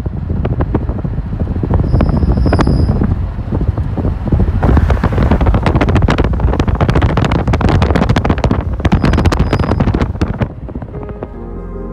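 Strong wind buffeting the microphone in uneven gusts, a heavy low rumble with crackling. About eleven seconds in it drops away and soft ambient music begins.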